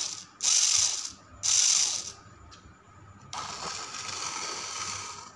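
Small electric motor and plastic gears of a homemade RC crawler whirring in three short bursts of about half a second each, then a longer, quieter run of about two seconds.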